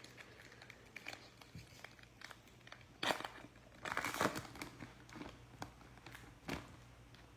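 Foil wrapper of a Panini NBA Hoops Premium Stock trading-card pack crinkling as it is torn open by gloved hands. The crackles are loudest about three seconds in and again around four seconds in.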